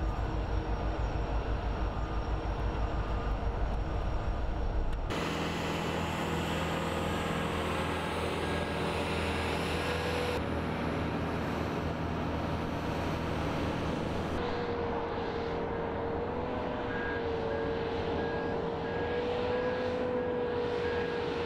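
Union Pacific diesel-electric locomotives, including EMD SD70ACe No. 4141, idling with a steady engine hum. The hum pulses low for the first few seconds and changes at cuts about five, ten and fourteen seconds in. A steady whine runs through the last part.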